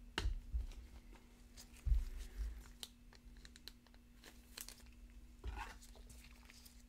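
Gloved hands handling trading cards and their packaging: a few soft thumps on the table and small clicks and crinkles, over a faint steady hum.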